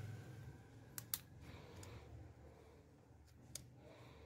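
A few sharp plastic clicks, two close together about a second in and another near the end, as the vivo Y02s's back panel is pried off the phone's frame and its clips snap loose, over a faint low hum.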